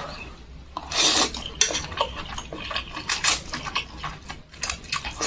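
Mie ayam noodles being slurped and chewed up close, in a run of short, wet sucking slurps a second or so apart.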